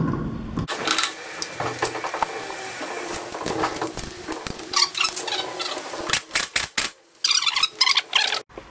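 Wheel bolts clicking and rattling as they are put in and run in on a car's alloy wheel. There is a dense burst of clicking near the end.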